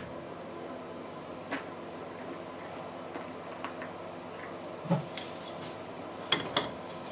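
A few scattered light metallic clinks and a duller knock about five seconds in, from hand work at a metal-working lathe, over a faint steady hum.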